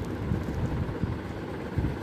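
Low, uneven rumbling noise on the microphone, with no distinct tone.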